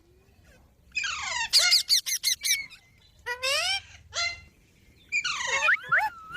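Green parrot calling: three bouts of shrill squawks that sweep quickly up and down in pitch.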